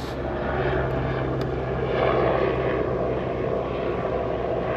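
Steady machine whirring with a constant low hum underneath.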